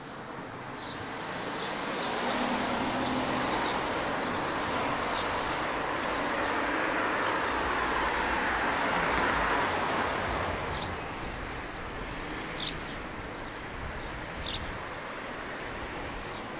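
A vehicle passing along the street, its engine and tyre noise building over several seconds and fading away about two-thirds of the way through, with small birds chirping.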